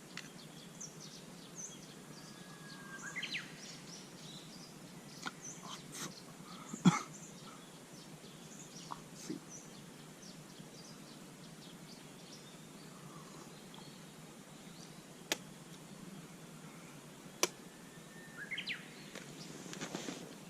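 Wood campfire crackling with scattered small ticks and a few sharp pops, the loudest about seven seconds in. Birds chirp a couple of times.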